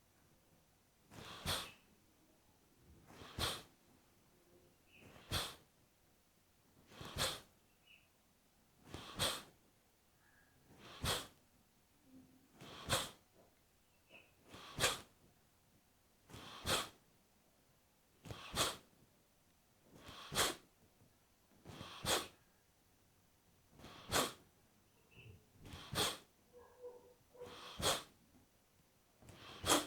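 Kapalbhati breathing through the right nostril: forceful, sharp exhalations pushed out by the abdomen, about one every two seconds, with quiet passive inhalations between.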